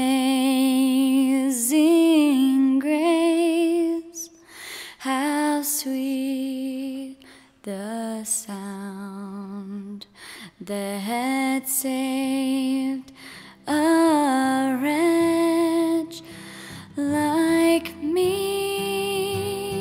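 Background music: a slow song sung by a single voice, with long held notes and vibrato separated by short pauses between phrases. A faint low accompaniment joins in during the second half.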